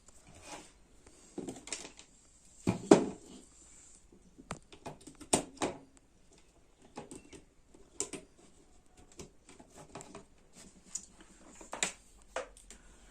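Irregular clicks, taps and light knocks of a circuit board and small tools being handled. The sharpest knocks come about 3 and 5 seconds in and again near the end.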